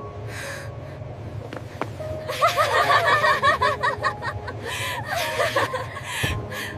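A group of friends laughing happily together, in quick rippling bursts that are loudest from about two seconds in, over a steady low hum.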